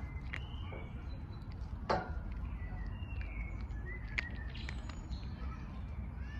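A cat eating dry kibble, with a few sharp crunches, the loudest about two seconds in. Birds chirp now and then in the background over a steady low rumble.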